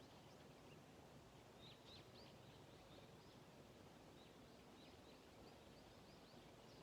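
Faint chirping of small birds: a quick run of short high notes beginning about a second and a half in, over a low steady background hiss.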